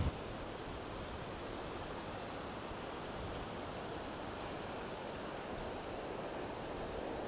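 Steady beach ambience: the even hiss of distant surf and a light breeze, unchanging throughout.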